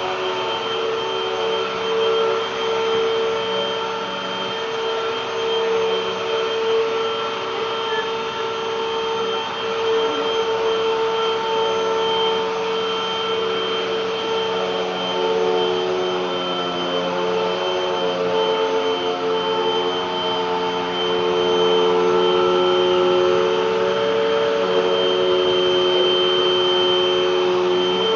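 Vacuum cleaner motor running with a steady whine; the pitch wavers slightly in the second half and the sound grows a little louder about twenty seconds in.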